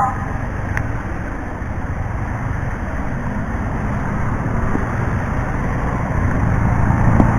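Steady wind and riding noise with a low engine hum from a motor scooter under way, picked up by a microphone inside a closed-visor helmet. It grows slightly louder about six seconds in.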